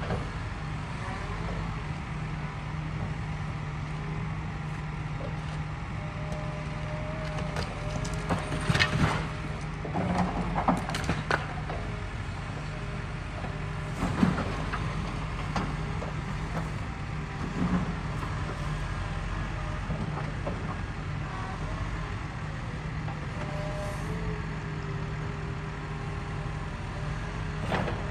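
Cat 316E excavator's diesel engine running steadily during demolition, broken by crashes and clanks of brick and concrete debris as the grapple works the building, several close together about a third of the way in and single ones later.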